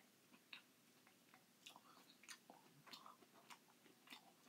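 Faint, close-up eating of crushed pineapple from a tin can with a spoon: wet chewing and mouth smacks mixed with small, irregular clicks of the spoon against the can.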